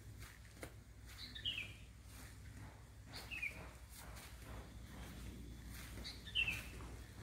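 A bird calling three times, each call a short chirp falling in pitch, over faint outdoor background noise.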